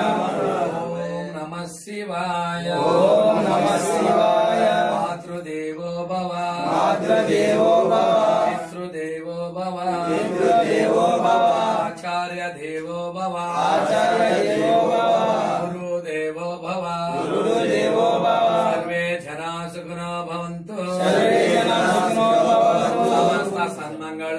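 Voices chanting a Hindu devotional mantra in phrases of about three to four seconds with short breaths between them, over a steady low hum.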